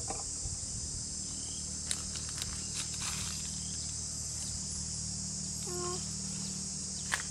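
Steady high-pitched chorus of insects such as crickets, over a low steady hum, with a few scattered clicks and one short pitched call a little before six seconds in.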